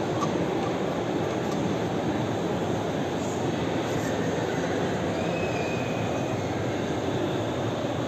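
Steady background roar at an even level, with no distinct knocks or events; a brief faint whistle about five seconds in.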